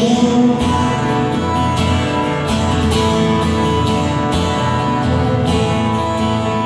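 Live band playing an instrumental passage: strummed acoustic guitar carrying the rhythm over a second guitar, heard through the hall's PA.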